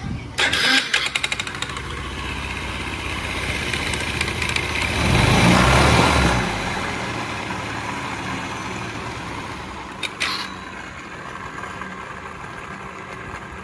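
Yamaha Cuxi 100 carburettor scooter's single-cylinder engine starting with a quick clatter, then revving up to its loudest about five seconds in and settling back to a steady run, with a brief sharp sound about ten seconds in. The mechanic judges the reported riding noise to come from a damaged bearing in the gearbox.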